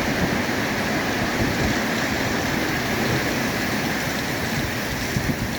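Heavy rain falling, a steady dense hiss with an uneven low rumble beneath it.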